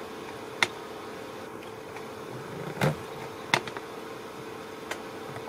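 A steady low hum, with a few short sharp clicks and one softer thump about three seconds in.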